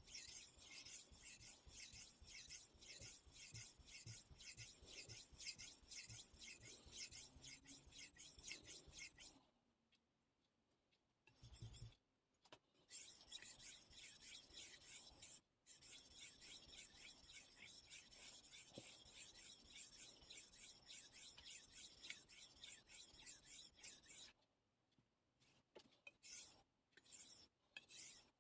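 Steel blade of a Miyabi gyuto kitchen knife stroked back and forth on a Suehiro Debado whetstone in quick, even rasping strokes. The strokes stop for a couple of seconds about ten seconds in, then resume, and break into short separate strokes near the end.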